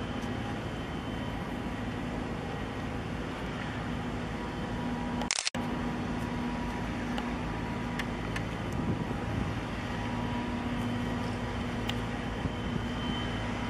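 Steady low engine drone with a hum from a ship under way, over a wash of wind and water noise. A sharp click and a brief cut-out about five seconds in.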